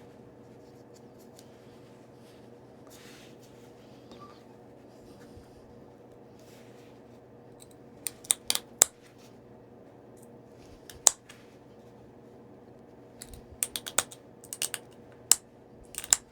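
Flintknapping: sharp, snapping clicks of small flakes breaking off a Tallahatta quartzite point as its stem is worked. A cluster comes about eight seconds in, a single one at eleven seconds, and a quick run of them near the end, after faint scraping on the stone.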